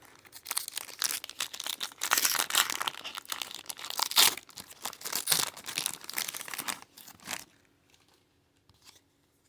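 Foil wrapper of a Pokémon booster pack crinkling and tearing as it is opened, stopping abruptly about seven seconds in.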